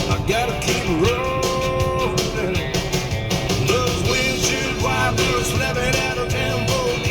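Rock-and-roll style music with guitar playing steadily.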